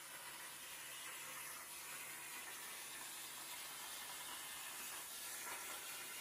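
Faint, steady hiss of a CNC plasma torch cutting steel plate on a Langmuir Systems CrossFire XR table.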